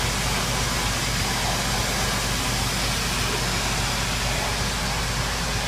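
Steady rush of water flowing at about 80 m³ through an open valve and the test bench's pipework, with a steady low hum underneath.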